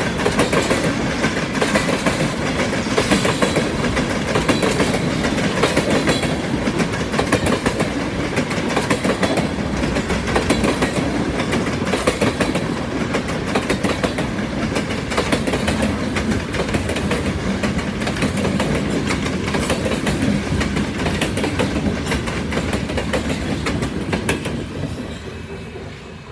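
Freight train cars rolling past close by, steel wheels clicking and clattering over the rail joints with a steady rumble. The sound falls away near the end as the last car passes.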